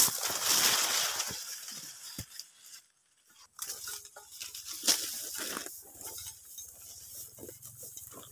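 Dry oil palm fronds rustling and crackling, with sharp knocks of a pole-mounted steel harvesting chisel against the palm. A faint low hum comes in after about six seconds.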